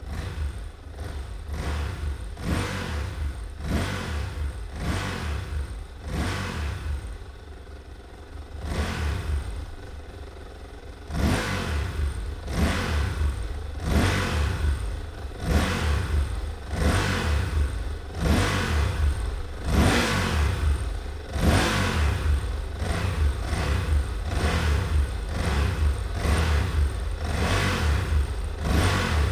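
Motorcycle engine revved over and over in short throttle blips, each a quick rise and fall in pitch, about one a second, over a steady low engine note. It grows louder about a third of the way through.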